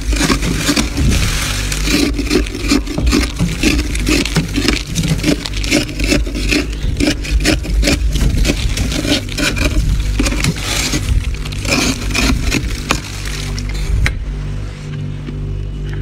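Thick, snowy frost being scraped off the inside wall of a freezer with a metal spoon: a dense run of scrapes and scratches that thins out about two seconds before the end.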